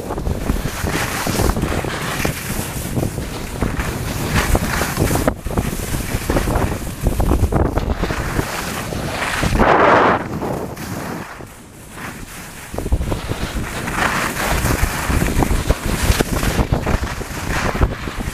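Wind rushing over the microphone during a fast run down a ski piste, mixed with the hiss and scrape of edges carving the snow. A louder scrape comes about ten seconds in, during a turn, followed by a brief lull.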